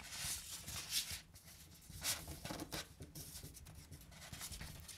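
Sheet of A4 paper rustling and being creased by hand in a few short, faint scrapes as folds in a paper airplane are pressed flat.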